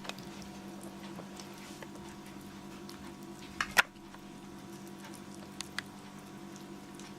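Kittens moving about, small paws pattering with scattered light ticks and two sharp clicks about halfway through, over a steady hum.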